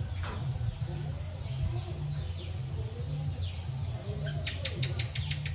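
Birds calling with short falling chirps, then a quick run of about ten clicking notes about four seconds in, over a steady low hum.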